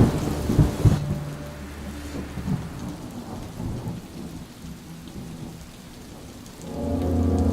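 Thunder with rain: a crash at the start that rumbles and dies away over a couple of seconds, leaving a steady patter of rain. Near the end a low, steady droning tone with many layered pitches comes in.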